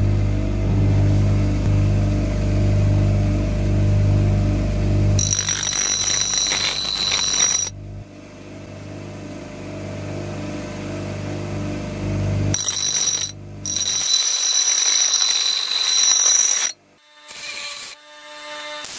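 Bench grinder running as the steel head of a vintage Brades Criterion axe is pressed to its wheel twice, each time for a few seconds, giving a high-pitched ringing grind over the motor's hum. The grinding stops about three seconds before the end.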